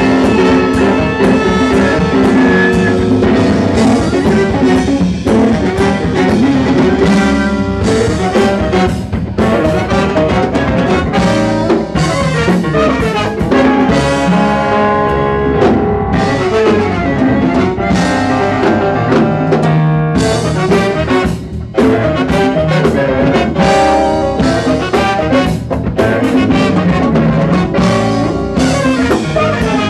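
Live jazz band playing, its brass section of trumpets and trombone blowing together over a drum kit.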